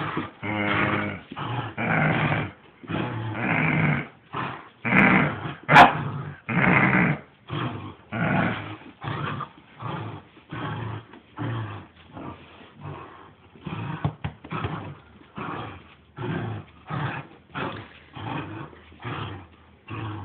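Saint Bernard play-growling during a game of tug: a long run of rough growls, about one a second, longer and louder in the first eight seconds and shorter after that. A single sharp click about six seconds in.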